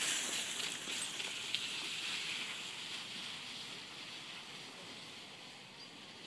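Miniature horse's hooves and a two-wheeled training cart's wheels crunching on gravel, with a few clicks in the first two seconds. The sound fades steadily as the cart moves away.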